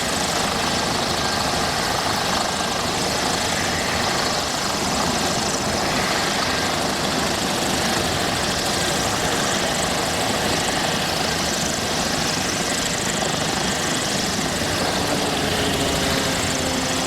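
Mil Mi-28 attack helicopter running close by: a steady, loud wash of rotor and twin turboshaft engine noise that holds level throughout.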